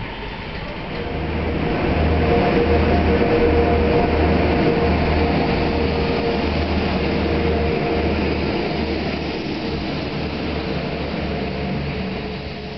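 Arriva Trains Wales Class 175 diesel multiple unit moving through the platform under power: a low, pulsing diesel engine throb with a steady hum above it. It grows louder about a second in and slowly fades toward the end.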